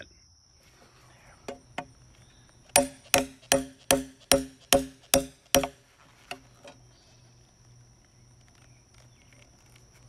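Claw hammer striking a steel tool driven under a staple, to pull the copper ground wire off a wooden utility pole. Two light taps, then eight hard, ringing blows in quick succession, then a couple of light taps.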